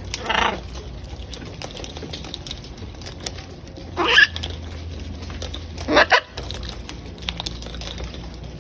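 Pet parrots giving three short harsh squawks, one near the start, one about four seconds in and one about six seconds in, with faint light tapping between them.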